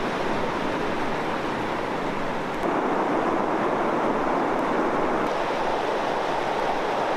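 Gunnison River rapids rushing steadily over rocks, becoming louder about three seconds in.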